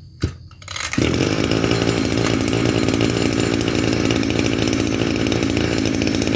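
Maruyama MBS2630 26 cc two-stroke brush-cutter engine, 34 mm bore, pull-started on its recoil starter: it catches about a second in and then runs steadily.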